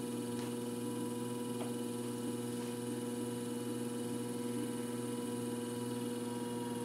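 Electric potter's wheel motor running at a steady speed with a constant hum, with a few faint ticks.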